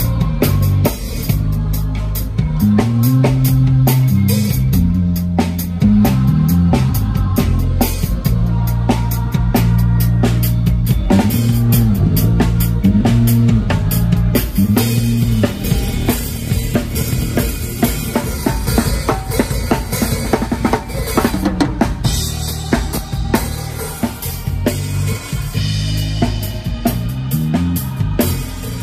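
Band music driven by a drum kit, with a steady run of kick, snare and cymbal hits, under a low bass line that slides between notes. No singing stands out.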